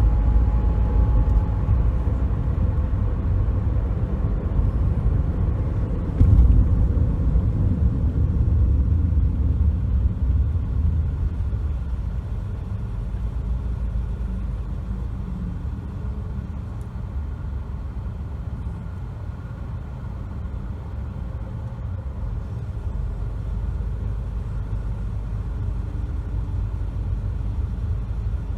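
A car driving, heard as a steady low rumble of road and engine noise, with a brief thump about six seconds in. It is louder for the first ten seconds or so, then eases and stays steady.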